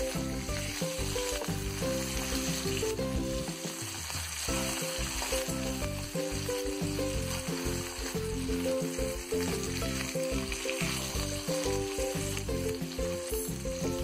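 Pomfret shallow-frying in hot oil in a non-stick pan, sizzling steadily, with a wooden spatula turning the fish. Background music plays underneath.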